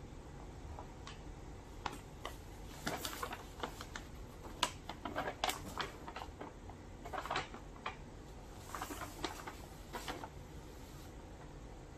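Brown kraft-paper shopping bag crinkling and rustling in short, irregular bursts as it is handled.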